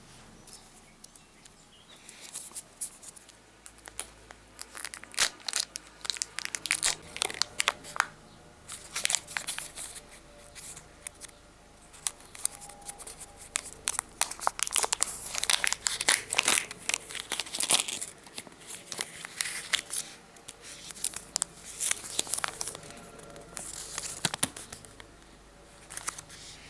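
Kinder Joy egg's plastic wrapping being torn open and crinkled by hand, in dense runs of short sharp crackles.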